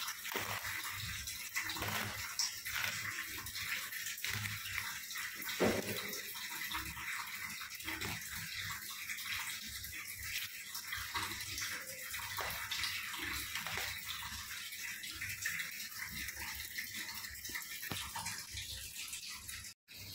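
Steady water-like hiss with scattered faint clicks and crackles. One sharper knock comes about six seconds in, and the sound cuts out briefly near the end.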